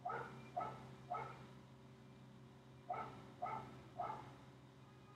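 Faint dog barking: three barks about half a second apart, a pause of nearly two seconds, then three more.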